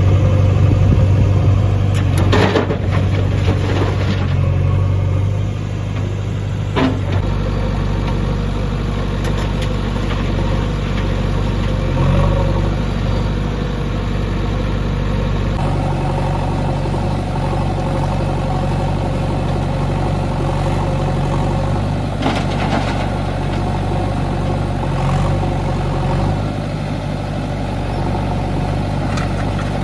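Diesel engines of a JCB 3DX backhoe loader and a Mahindra Arjun 605 tractor running steadily at close range, with a few short clanks as the backhoe works.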